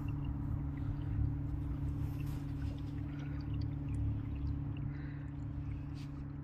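Small boat's motor running steadily, a low, even hum with a constant pitch.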